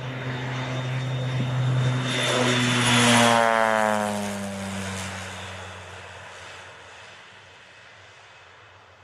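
Agricultural crop-spraying plane flying low past: its propeller engine grows louder to a peak about three seconds in, drops in pitch as it goes by, then fades away.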